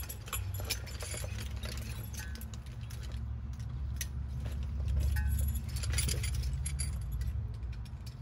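Scuba gear being handled while a buoyancy compensator is strapped onto a scuba tank: scattered clicks and clinks of buckles, clips and hardware, over a steady low rumble.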